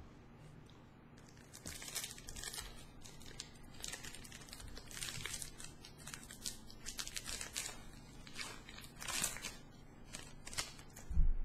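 Foil wrapper of a Pokémon trading card booster pack crinkling and tearing as it is opened by hand, in a run of sharp crackles. A dull thump near the end.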